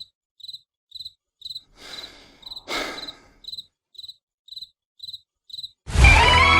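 Cricket chirping in short, evenly spaced chirps, about two a second, with near silence between them. Two soft swishes come in the middle, and a louder sound with several steady tones cuts in near the end.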